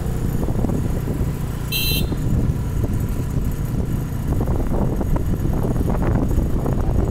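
Steady low rumble of road and vehicle noise, with a short high-pitched toot about two seconds in.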